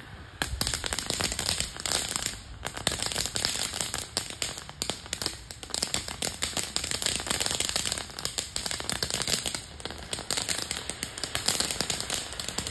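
Ground fountain firework spraying sparks, a dense crackle of rapid pops and hiss that starts about half a second in.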